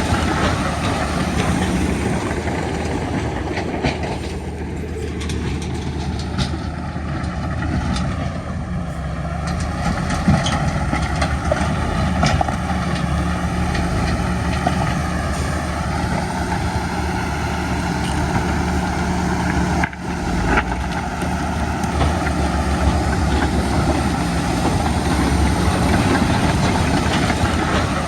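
Heavy diesel earthmoving machinery running with a steady engine drone, with a few sharp knocks about ten to twelve seconds in and a brief drop in level about twenty seconds in.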